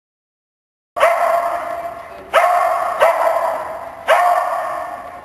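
A dog barking four times, starting about a second in, each loud bark followed by a long echo in a large indoor hall.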